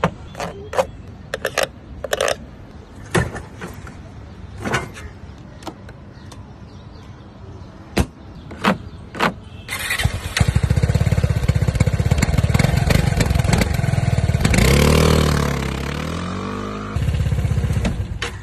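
A series of sharp, scattered taps and clicks. About ten seconds in, the Keeway Sixties 300i scooter's single-cylinder engine starts and runs with a steady beat. It is revved once, rising and falling, around fifteen seconds in, then settles back to idle.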